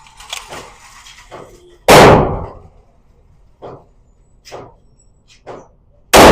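Two loud gunshots about four seconds apart, each with a short echoing tail, with fainter shots from other lanes of an indoor firing range between them.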